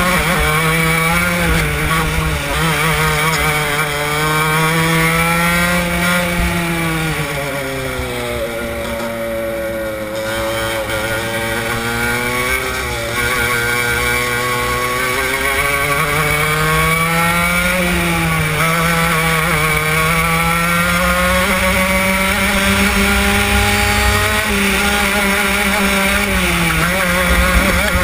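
Racing kart engine heard onboard at full throttle, its pitch climbing along the straights and dropping as it slows for corners, with the deepest drop about eight seconds in.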